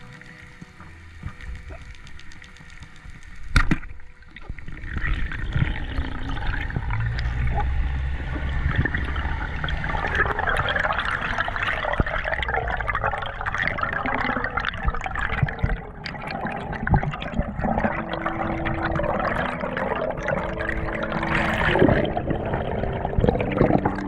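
Underwater spearfishing: a single sharp crack about three and a half seconds in, typical of a speargun firing, then steady rushing water noise from the diver and the speared fish moving in the water.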